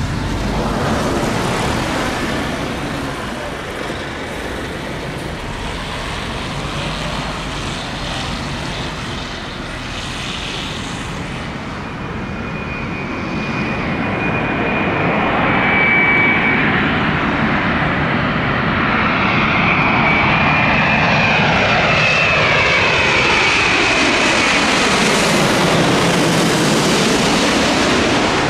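Boeing 787 jet engines on final approach, growing louder as the airliner nears. A high whine joins in about halfway through, and near the end the sound sweeps downward in pitch as the aircraft passes low overhead.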